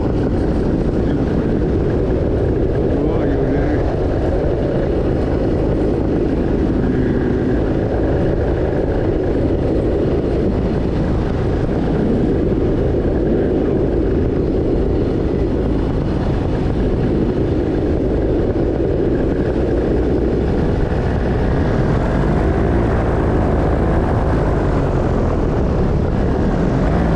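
Paramotor engine and propeller running steadily under power, with no change in throttle.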